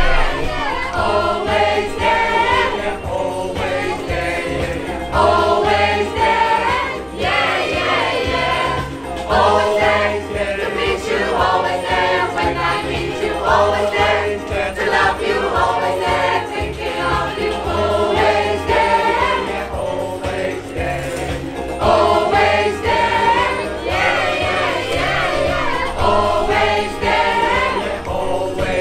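A choir singing a song together, with a bass line running underneath.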